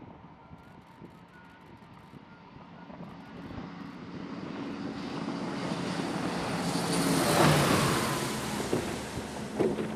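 E-2D Advanced Hawkeye's twin turboprop engines growing louder as the aircraft comes in to land on the carrier deck, loudest at touchdown about seven and a half seconds in, then easing as the arresting wire brings it to a stop. A couple of sharp knocks near the end.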